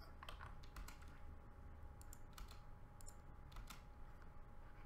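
Faint clicks of computer keyboard keys, scattered and irregular, as a short terminal command is typed and Enter is tapped, over a faint steady electrical hum.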